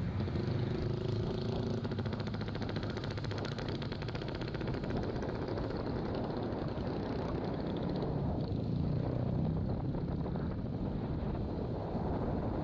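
Vehicle engine running steadily under way, with road and wind noise.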